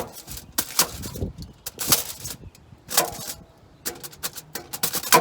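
Knife stabbing and cutting small slits for smoke to pass through, making sharp crisp clicks: roughly one a second at first, then a quick run of them near the end.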